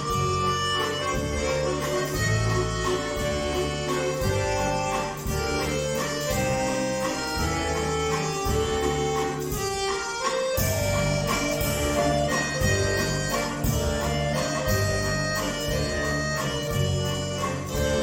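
Two bayans (Russian button accordions) playing a duet: a melody of held notes over a steady pulse of bass chords, with a brief break about ten seconds in.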